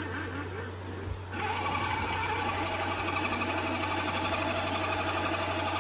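Small electric motor of a toy pottery wheel whirring as the turntable spins, over a steady low hum. About a second in the whine becomes louder and brighter.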